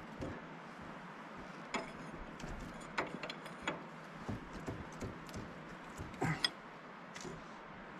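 Hand tools clinking and knocking on the steel of a John Deere 650J dozer's hydraulic lift cylinder as a mechanic works on it with a wrench: scattered sharp clicks, the loudest cluster about six seconds in.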